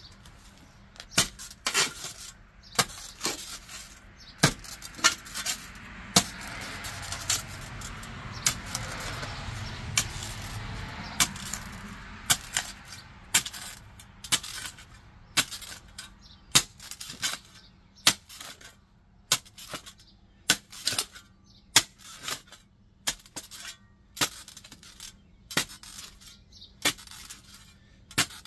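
Steel spade digging along the edge of a concrete sidewalk: repeated sharp clinks and scrapes, about one or two a second, as the blade strikes concrete, stones and packed soil. A broad rushing swell rises and fades in the middle.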